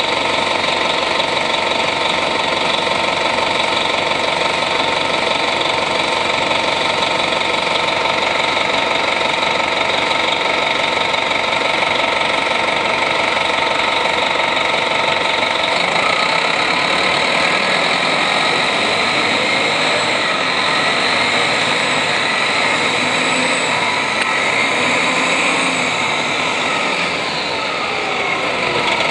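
The Detroit Diesel Series 50 four-cylinder diesel of a 1996 Nova RTS transit bus, heard from on board. It runs with a steady note and whine for about the first half. From about sixteen seconds in, its pitch begins to glide up and down.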